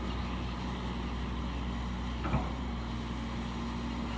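Excavator engine running steadily, with a single short knock a little over two seconds in.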